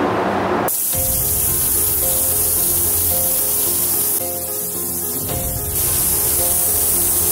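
Automotive paint spray gun hissing steadily as it lays down clear coat. It starts about a second in and eases briefly about four seconds in.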